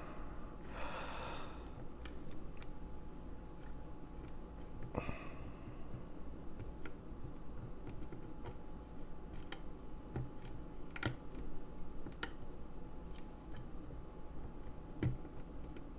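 Lock pick and tension wrench working the pins of a large pin-tumbler lock cylinder: scattered faint metallic clicks, irregularly spaced, with brief light scraping.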